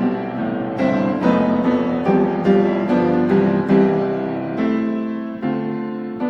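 Background music: piano chords and notes struck about every half second, each ringing and fading.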